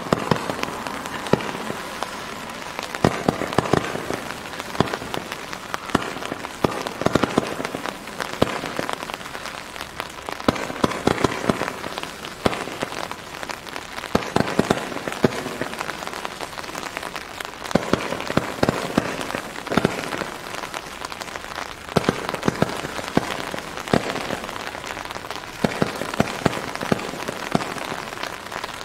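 Low-noise 14 mm roman candle barrage firing a long run of shots: a steady fizzing hiss of burning gold tails and green strobe stars, broken by many sharp pops throughout.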